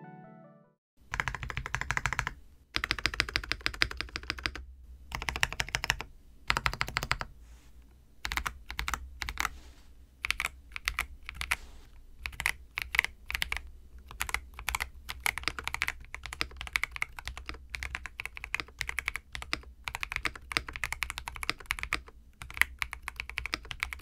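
Typing on a Zuoya GMK67 mechanical keyboard with Holy Panda V1 tactile switches that have not been hand-lubed, a tape-modded space bar and screw-in stabilizers. Short bursts of keystrokes begin about a second in, then turn into steady fast typing from about eight seconds in.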